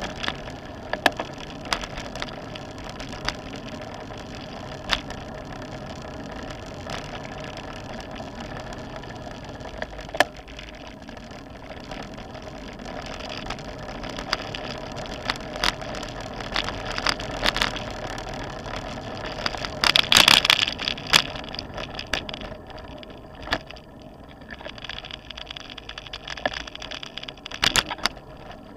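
Road bike riding over brick and asphalt streets, heard from a camera on the handlebars: steady tyre and wind noise with frequent sharp clicks and rattles from bumps in the paving. A louder burst of noise comes about twenty seconds in.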